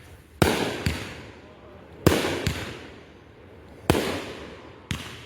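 Consumer fireworks going off: six sharp bangs, loosely in pairs, each trailing away over a second or so.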